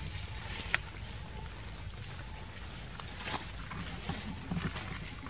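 Outdoor ambience of faint rustles and one sharp click, over a steady low rumble.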